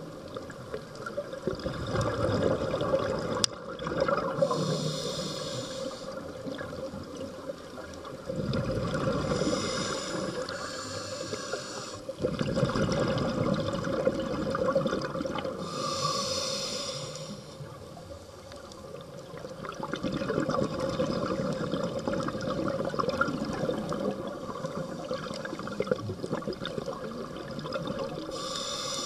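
Scuba diver breathing underwater through a regulator: short hissing inhalations alternate every few seconds with longer bubbling rumbles of exhaled air, over a steady faint hum.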